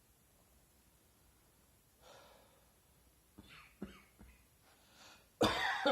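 A person's dry cough: a breath drawn in about two seconds in, a few small throat catches, then a sudden loud cough near the end.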